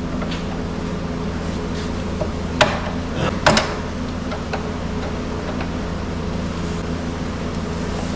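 Steady low mechanical hum of a running machine, with a few short light knocks, the clearest about two and a half and three and a half seconds in.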